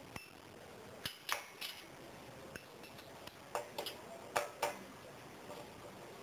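Light metallic clicks and clinks as metal parts are handled and fitted by hand on a brush cutter's gear head: about eight short, irregular taps, a few ringing briefly.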